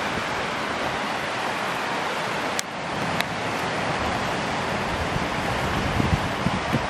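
Steady rush of a fast mountain river running in white water. Two sharp clicks about half a second apart come midway.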